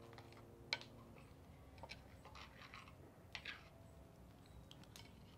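Soft clinks and scrapes of forks and spoons on earthenware plates as enfrijoladas are cut and eaten. The sharpest clink comes about a second in, and a few lighter ones follow.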